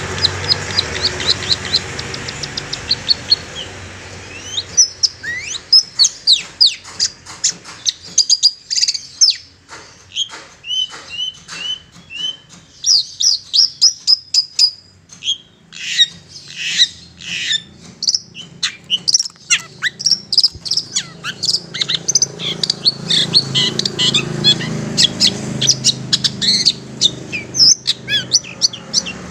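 Long-tailed shrike singing: a fast run of evenly repeated high notes, then a long, varied string of sharp chirps, short whistles and trills.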